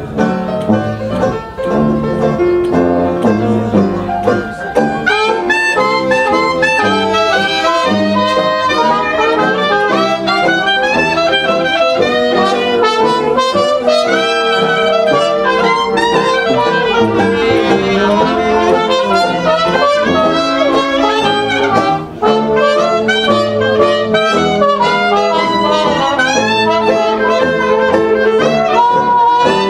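Traditional jazz band playing an ensemble chorus: trumpet and cornet lead together with clarinet and alto saxophone, over banjo and sousaphone.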